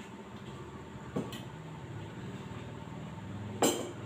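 A spoon clinks against a ceramic bowl a couple of times, then a louder clink near the end as the bowl is set down on the table. A steady low motor hum runs underneath.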